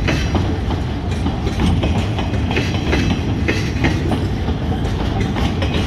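Empty log cars of a freight train rolling past without slowing: a steady low rumble of steel wheels on the rails, with repeated clicks as the wheels cross rail joints.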